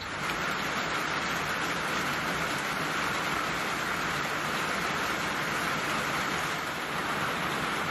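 Heavy rain falling steadily on open swamp water and a wooden dock: an even, unbroken hiss.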